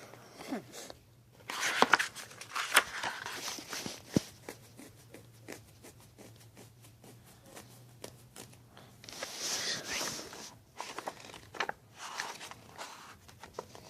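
Rustling and scattered clicks of something being handled close to the microphone, with a few short bursts of rustle spread through the pause.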